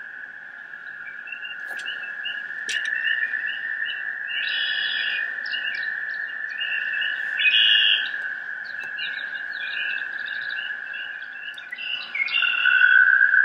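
A steady high whistling tone held throughout, with short chirping, bird-like calls over it. The tone steps up in pitch and gets louder near the end.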